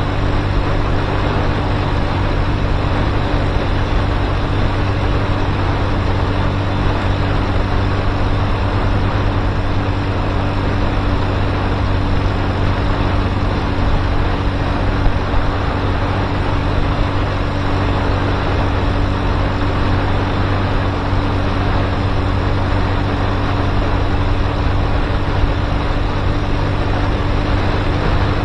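Motorcycle on the move at a steady speed: an engine hum held at one pitch under a constant rush of noise, with no change in pace.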